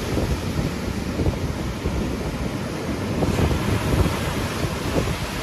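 Wind buffeting the microphone, a gusty low rumble, over the steady rush of sea surf.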